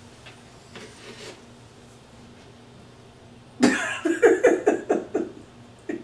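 A person's voice breaking suddenly into a quick run of about ten short bursts that lasts under two seconds, with one more short burst near the end, over a faint steady hum.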